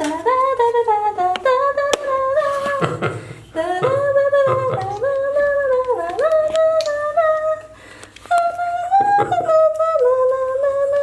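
A wordless tune hummed or sung by one voice: a melody of held notes with small glides between them, broken briefly twice, with faint clicks under it.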